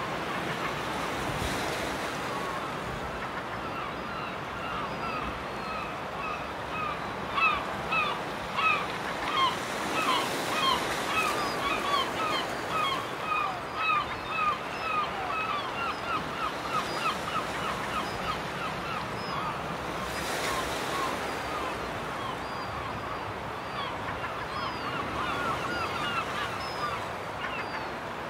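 A flock of gulls calling: many short, repeated cries, thickest and loudest from about seven seconds in until about sixteen, then sparser, over a steady wash of small waves on the shore.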